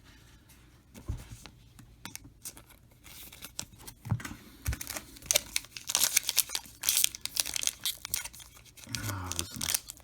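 Foil trading-card pack wrapper being torn and crinkled open. It is a struggle that runs several seconds, with crackling tearing from about three seconds in. A pack that is hard to open.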